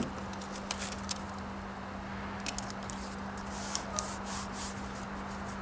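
Blue painter's tape being pulled off its roll, torn and pressed onto a car's trunk lid: a few short, scratchy rustles, the clearest between about three and five seconds in, over a steady low hum.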